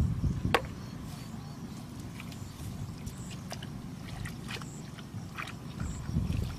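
Hands groping for fish in shallow muddy water, sloshing and squelching through water and mud, with a few sharp wet splashes. It is loudest at the start and again near the end.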